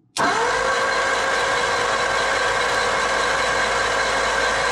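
Starter motor cranking the 1944 Ford flathead V8 over steadily, its whine spinning up quickly right at the start and then holding even. The engine is being turned over with the distributor cap off to check the spark from a jumpered 6-volt coil.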